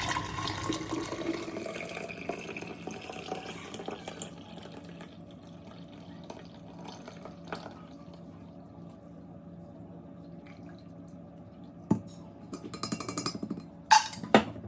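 Herbal infusion of ginger and lemon being poured through a strainer: liquid splashes and trickles, loudest in the first few seconds, then thins to a faint trickle and drips. Near the end, a click and a few clinks and knocks of utensils or containers.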